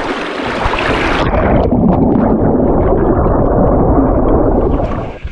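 Water splashing at the river surface, then about a second in the sound turns suddenly muffled and dull as the camera goes under. River water rushes and bubbles against the submerged camera housing, and the sound drops away near the end.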